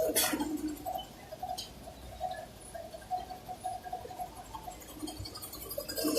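Faint machine ticking, a short light tick about three times a second, after a sharp click at the start.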